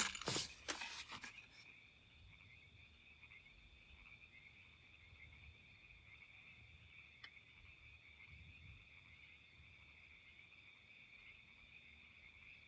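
Faint, steady, high-pitched night chorus of calling crickets or frogs, unbroken to the end, after a few knocks in the first second.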